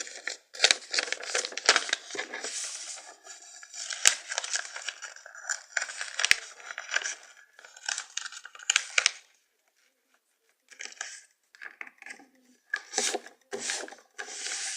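A sheet of paper being folded and creased by hand: irregular rustling and crinkling, with a short pause a little past halfway.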